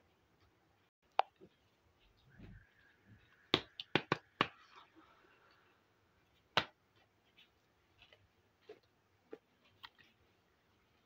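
Small hard-plastic toy pieces (miniature chairs and a toy stove) being picked up and set down on a hard surface: sharp plastic clicks and taps. There is a single click about a second in, a quick run of four clicks a little before the middle, another sharp click just past the middle, then lighter taps.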